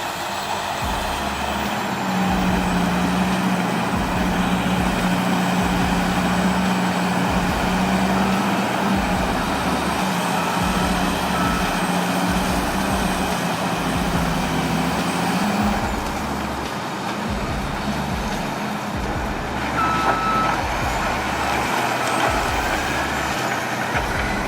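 Caterpillar 988G wheel loader's diesel engine working under load, its pitch rising and falling through the loading cycle, with a few short beeps from its reversing alarm.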